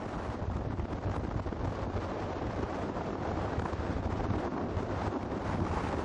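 Steady low rumble with wind noise on the microphone.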